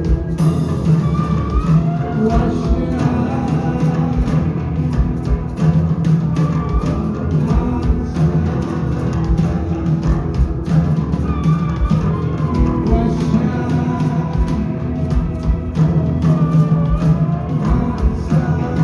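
A rock band playing live at full volume: drums, heavy bass-guitar sound and a wavering sung vocal line over a dense wall of guitar.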